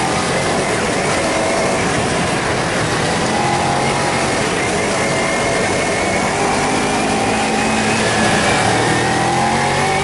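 Kawasaki Ninja 250 parallel-twin engine running while the bike is ridden on the road, its pitch drifting gently up and down, under a steady rush of wind noise on the microphone.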